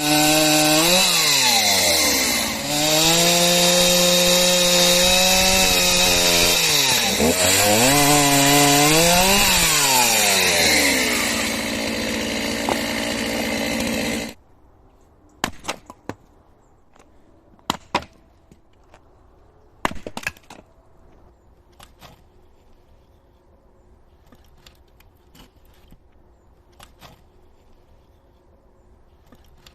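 Chainsaw running at high revs and cutting firewood logs, its engine pitch dropping and climbing back twice as the cut loads it. It stops abruptly about halfway through, and a few sharp knocks follow.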